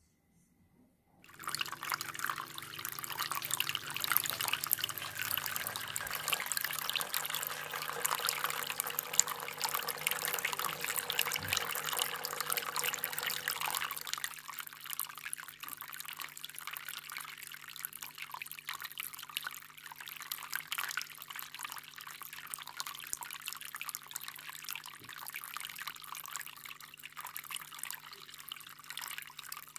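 Water poured from a plastic cup into a plastic-jar fish tank, splashing in while the tank spills through a straw overflow pipe into a second jar. About halfway through it drops to a quieter steady trickle and drip of water running from the overflow pipe into the collecting jar.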